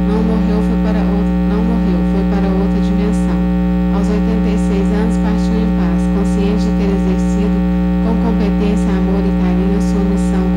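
Loud, steady electrical mains hum with many steady overtones in the audio feed. A voice reading aloud wavers faintly underneath it.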